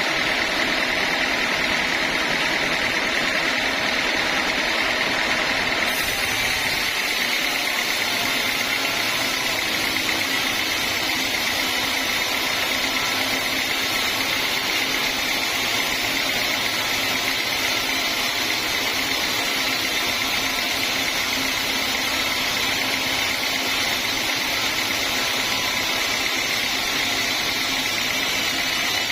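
Homemade band sawmill running with a steady machine whine and noise; about six seconds in the sound turns abruptly brighter and hissier.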